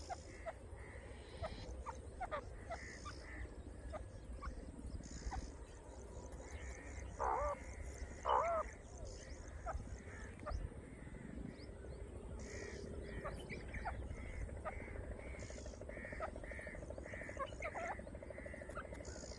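Grey francolin calling: two loud, harsh calls about seven and eight seconds in, over scattered short chirps and a steady low rumble.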